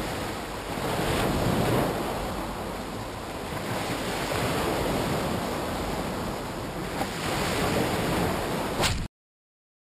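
Sea surf breaking on the shore, with wind rumbling on the microphone. The noise swells and eases with each wave, and a short click comes just before it cuts off abruptly about nine seconds in.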